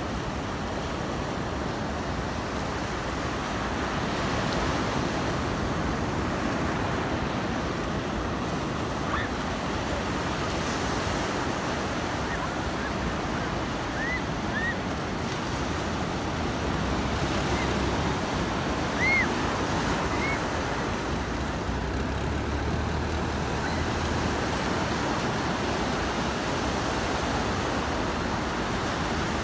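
Steady surf, waves breaking and washing up a sandy beach, with wind on the microphone. A few faint short chirps come through midway.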